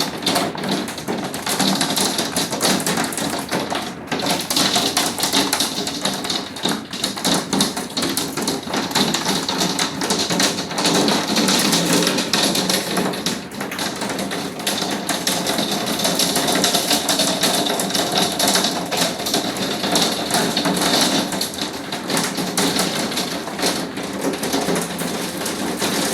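Hail falling hard: a dense, steady clatter of hailstones striking.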